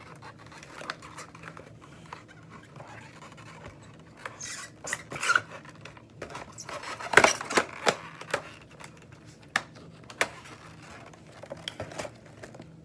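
Handling noise from a boxed set of small nail polish bottles in a plastic tray: packaging rubbing and bottles clicking as the box is picked up and moved, with a cluster of louder knocks about seven to eight seconds in.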